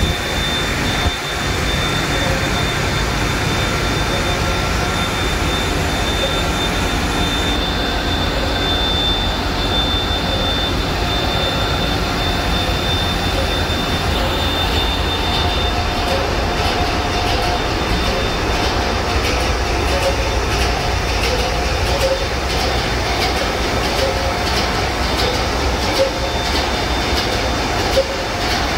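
Engine-room noise of a container ship at sea: the main diesel engine and auxiliary machinery running, a loud, steady din with a high steady whine. About halfway through, a rapid, regular clatter of knocks comes up in it.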